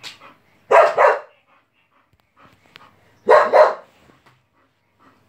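Bull terrier barking: two quick double barks, about two and a half seconds apart.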